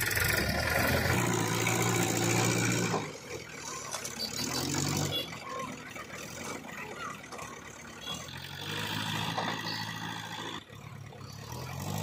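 Tata TH86 backhoe loader's diesel engine working under load while loading soil with its front bucket. It runs loud and steady for about three seconds, drops back, then rises again near the end.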